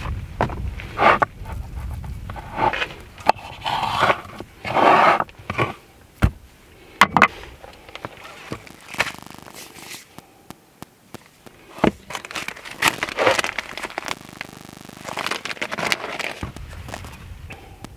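Open-fire cooking sounds: irregular sharp cracks and clicks between bouts of scraping and rustling.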